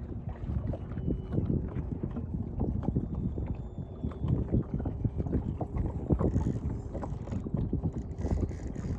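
Wind buffeting the microphone in uneven gusts, with many small irregular knocks.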